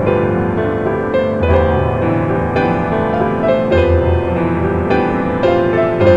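Background music: a gentle piano melody playing steadily.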